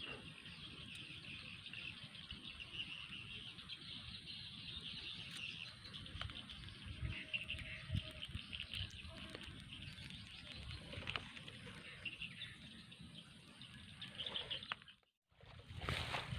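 Rural outdoor ambience of birds chirping over a steady high-pitched background hiss, with a few faint clicks and rustles. The sound cuts out completely for a moment near the end.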